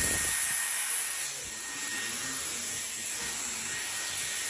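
Hair dryer running: a steady rush of blown air with a strong high hiss, dropping slightly in level about a second in.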